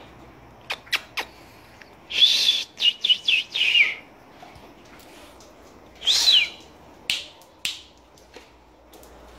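Doberman puppy giving high-pitched squeals: a quick run of short squeals from about two seconds in, and another falling squeal about six seconds in, with a few sharp clicks around them.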